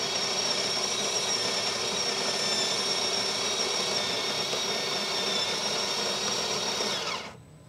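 Built-in conical burr grinder of a DeLonghi La Specialista Arte espresso machine grinding coffee beans into the portafilter. A steady whirring that stops abruptly about seven seconds in.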